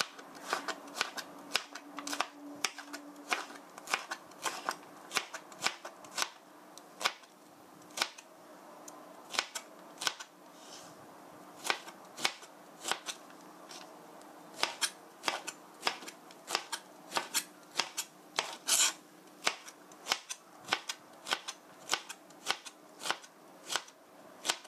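Chef's knife julienning a zucchini on a cutting board: a long run of sharp knife taps on the board, about two a second, each stroke slicing through the zucchini.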